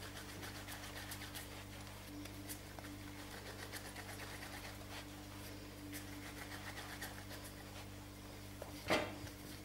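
Faint soft rubbing of hands rolling a strand of sweet bread dough on a stone countertop, over a steady low background hum, with one short knock near the end.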